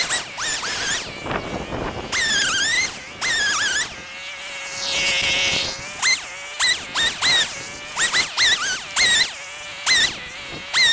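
Chicks peeping: short, high calls that dip and rise in pitch, coming thick and fast, about two a second near the end. In the middle a softer hiss with a steady hum swells up and fades.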